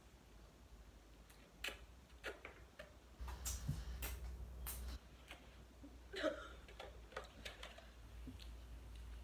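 Eating noises as two people eat noodles with plastic forks: a scattering of light clicks and short mouth sounds of chewing and slurping, with a low rumble from about three to five seconds in.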